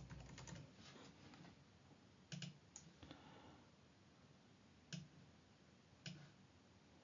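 Faint clicks of a computer mouse, a few at a time: a quick cluster in the first second and a half, a double click about two and a half seconds in, then single clicks near five and six seconds.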